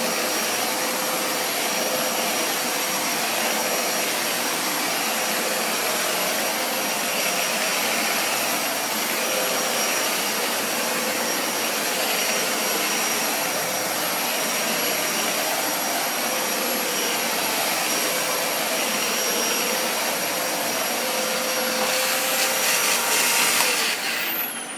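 Dyson vacuum cleaner running steadily on its carpet setting: a constant rush of suction with a steady high whine. Near the end the whine stops, a falling tone follows and the sound drops away as the motor winds down.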